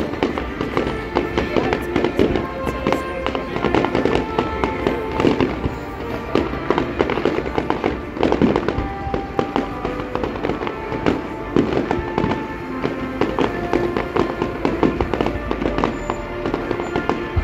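Fireworks display: a dense, continuous crackle of many small pops and bangs from bursting crackling stars, with music playing underneath in held notes.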